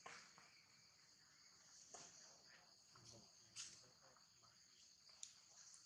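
Faint, steady high-pitched insect chirring outdoors, with a few soft clicks.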